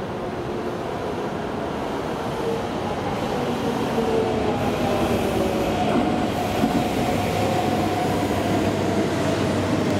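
Keikyu 600 series electric train (set 607, Mitsubishi inverter) pulling into a platform and braking to a stop: wheel and rail noise grows louder over the first few seconds as it comes alongside. A steady motor and inverter whine edges slightly lower in pitch as the train slows.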